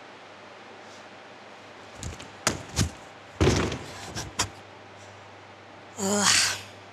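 A gymnast's bare feet and body thudding onto a sprung gymnastics floor and mat: a run of several knocks and thumps over about two and a half seconds, then a short breathy sound near the end as she lies back on the floor.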